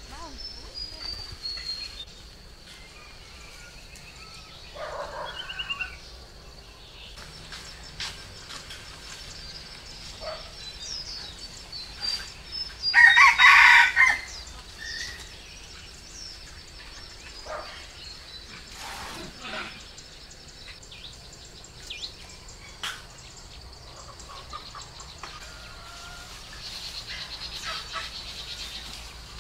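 A rooster crows once, loudly, about halfway through. Chickens cluck now and then, and small birds chirp in the background.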